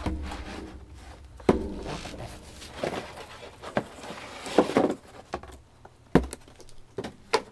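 Handling noise of a laptop in a plastic bag and its cardboard box: plastic rustling with irregular knocks and bumps, a few of them sharp.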